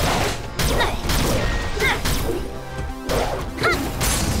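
Cartoon giant-robot fight sound effects: several heavy crashing impacts, one at the start, another about half a second in and another about three seconds in, over background music.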